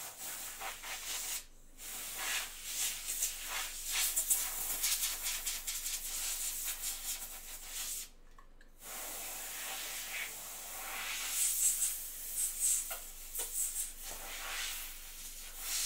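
Crinkling and rustling of packaging being handled close to the microphone, in quick irregular crackles, with two short pauses, about a second and a half in and about eight seconds in.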